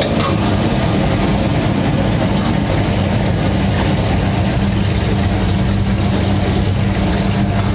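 Steady roar of a high-flame gas wok burner under a wok, with a steady low hum beneath it.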